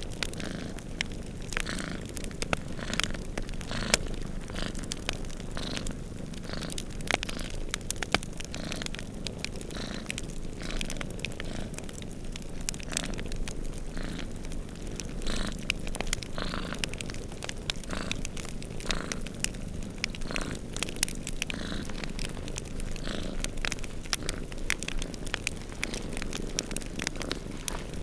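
Cats purring in a steady low rumble, with a wood fire crackling alongside in frequent sharp pops and snaps.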